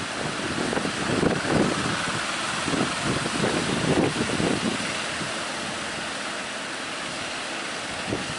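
Strong wind buffeting the microphone in irregular gusts over a steady rush of sea surf.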